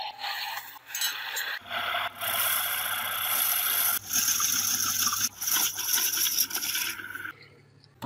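Hand-held turning tool cutting the face of a spinning wooden disc on a wood lathe: a rough scraping in several long passes with brief breaks, over a low steady hum from the lathe that starts about a second and a half in. The cutting stops shortly before the end.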